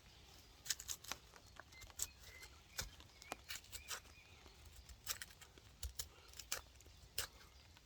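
Knife scraping and breaking up rotten punk wood into tinder: a run of faint, irregular short scratches and crackles, with a slightly louder click at the end.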